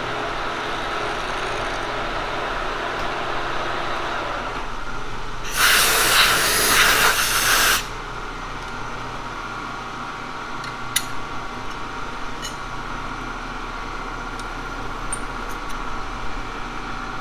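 Kearney & Trecker milling machine running while a carbide face mill finishes its cut across a cast iron machinist square; the cutting tone stops about four seconds in. A loud two-second blast of compressed air follows, blowing the cast iron chips away. After that the machine hums on, with a few light metallic clicks.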